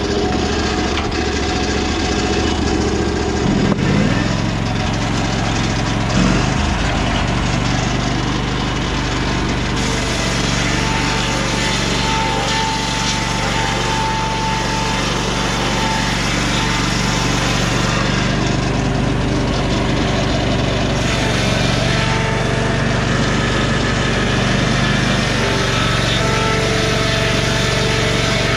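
Lucas Mill 618 swing-blade sawmill running under load, its Briggs & Stratton Vanguard 18 HP V-twin engine driving the circular blade through lodgepole pine. The engine note shifts about four seconds in, then holds steady.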